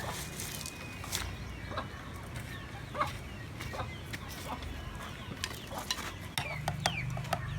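Scattered light clicks and knocks from hand work on bamboo, over a low steady hum, with chickens clucking now and then in the background.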